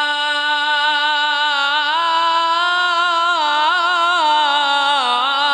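Melodic Quran recitation (tilawat): a reciter's voice drawing out one long unbroken note, with the pitch stepping up about two seconds in, turning in ornamented waves, and falling near the end.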